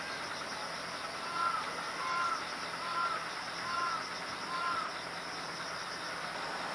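A bird calls five times in a row, short arched calls evenly spaced, starting about a second in. Under it runs a steady outdoor background hiss.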